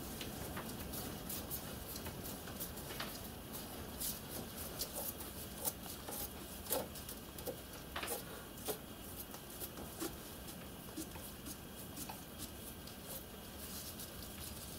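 A 6BA die in a hand die stock being turned down an M3 stainless screw held in a bench vise: faint, irregular metal clicks and scrapes as the die cuts, which is probably the die just changing the thread form.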